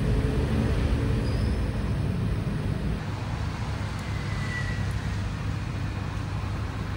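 Steady road traffic noise: the low, even rumble of passing vehicles on a busy street.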